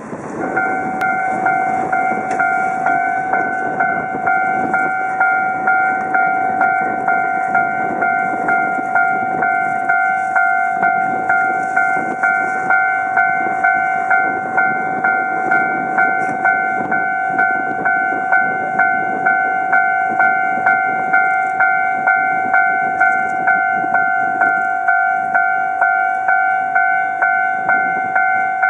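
Railway level-crossing warning bell ringing steadily, just under two strikes a second, warning of the approaching freight train, over a low rumble.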